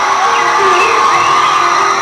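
Concert crowd cheering and screaming, many high-pitched shrieks overlapping, over a sustained held chord from the band.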